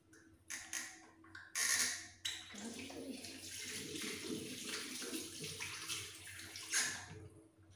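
Tap water running into a wash basin, with a short loud burst about one and a half seconds in and another near the end.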